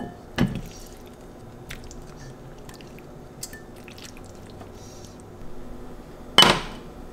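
Kitchen handling noises: a knock about half a second in and a louder one near the end, with light clicks and small wet sounds between.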